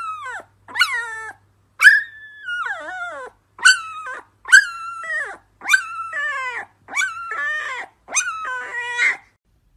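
Very young husky puppy crying in a string of high, yelping howls, about one a second, each call sliding down in pitch; one call early on is drawn out longer than the rest.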